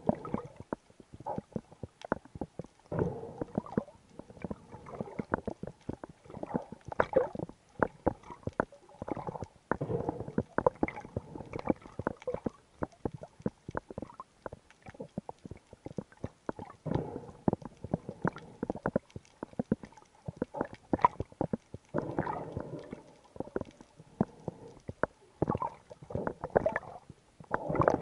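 Muffled underwater sound through an action camera's waterproof housing: irregular rumbling surges of moving water every second or two, with many sharp clicks and crackles throughout.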